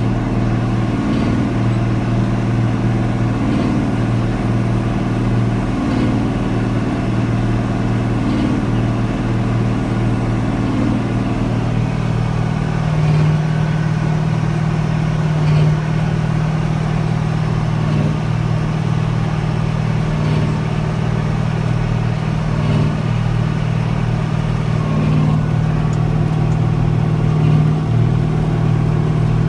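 Massey Ferguson 4840 tractor's diesel engine running steadily under load, with a regular pulse about every two and a half seconds. About twelve seconds in the engine note steps up higher and holds.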